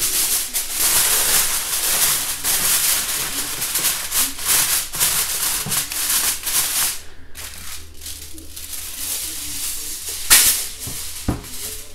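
Aluminium foil crinkling and rustling as it is spread over a metal roasting tray and pressed down around its edges, with a sharp louder crackle a little after ten seconds in.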